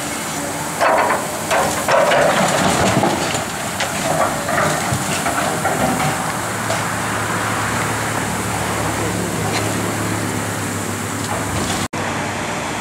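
Demolition excavator's diesel engine running under a steady hiss of water spray, with louder crashing and scraping of debris in the first few seconds. The sound drops out for an instant near the end.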